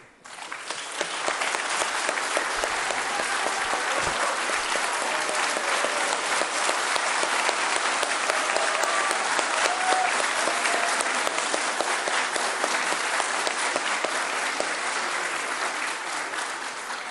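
A large audience applauding steadily, with a few faint voices in it, dying away near the end.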